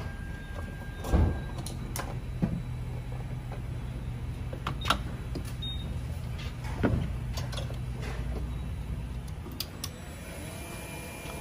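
Gas pump nozzle being handled: several separate clunks and knocks as the nozzle is lifted from the pump and set to the car's filler, over a steady low hum.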